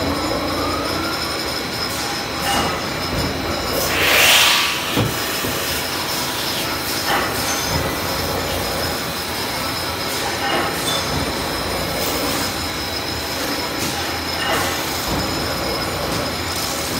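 CNC metal-spinning machine running, turning a sheet-metal workpiece on its mandrel: a steady mechanical noise with a thin high tone of metal on metal. A louder hissing surge comes about four seconds in, and a few short clicks are scattered through.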